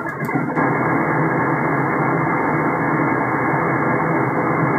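Steady static hiss from a Hermes Lite 2 software-defined radio receiving single-sideband on the 20-metre band. A received voice cuts off about half a second in, leaving only band noise between transmissions.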